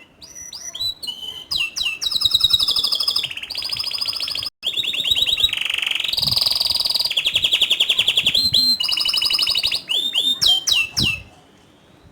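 Domestic canary singing a long song of rapid rolling trills, fast-repeated high notes alternating with short sweeping whistles. The song breaks for an instant about four and a half seconds in and stops shortly before the end.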